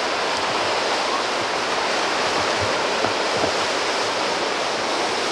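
Steady rush of running water, an even unbroken noise, with a few faint low thuds near the middle.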